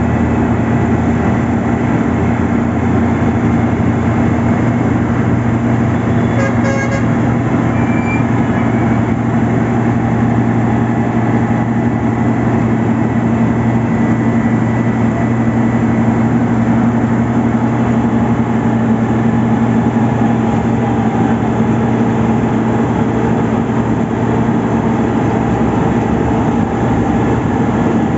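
Heavy diesel road-construction machinery running steadily under load with a constant low drone, and a brief rattle about six seconds in.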